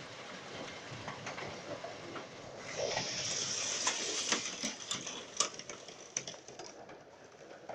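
Hail and heavy rain falling: a steady hiss with scattered sharp ticks of hailstones striking. The hiss grows louder for about three seconds in the middle.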